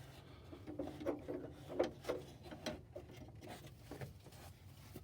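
Faint, scattered clicks and short rubbing scrapes of hands and tools working at an oxygen sensor stuck in its engine-bay bung, which will not come out by hand.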